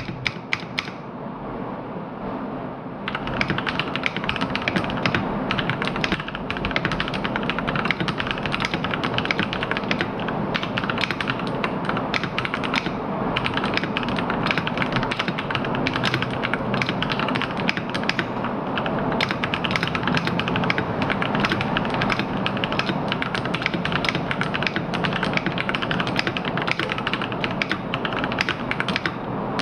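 Fast, continuous typing on a Ducky Shine 7 mechanical keyboard with Cherry MX Brown switches: a dense stream of key clicks and keycap clacks, brightening about three seconds in.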